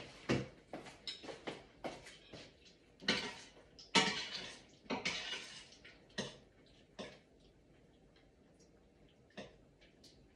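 Dishes and cutlery clattering, with a run of knocks, clicks and a few longer scrapes that die away about seven seconds in, leaving only a couple of faint ticks.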